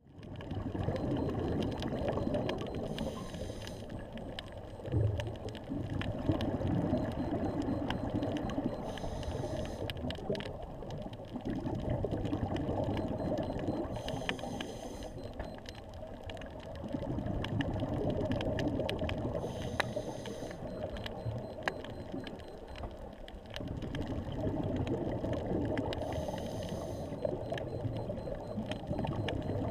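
Muffled underwater sound of a scuba diver breathing through a regulator: a short hiss of inhalation about every five to six seconds, with bubbling rumble of exhaled air between, over a crackle of small clicks.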